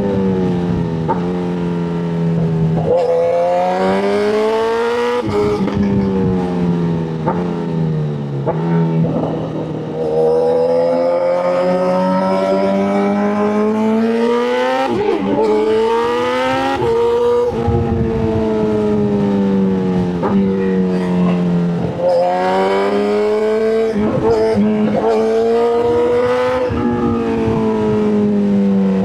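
Motorcycle engine running hard. Its pitch climbs under throttle and drops back again and again, with a sharp dip about ten seconds in and another near twenty-two seconds.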